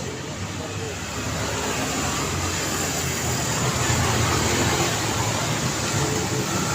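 Street traffic: cars and engines passing on a city road, a steady rush of tyre and engine noise that swells as a vehicle draws near about three to four seconds in.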